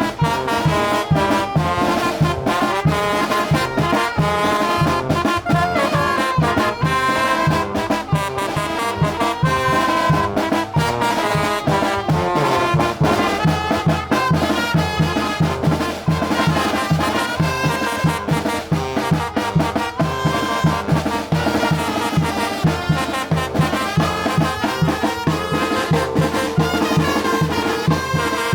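Brass band playing a chilena: trumpets and trombones carrying the melody over a fast, steady bass-and-drum beat.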